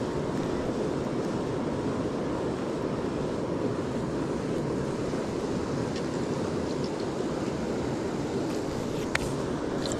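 Steady rushing of fast-flowing river water, with one sharp click about nine seconds in.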